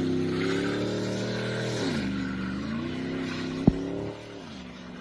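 Squat pickup truck's engine running through a loud exhaust: the note holds steady, drops about two seconds in, picks back up, then drops again near the end. A single sharp click sounds in between.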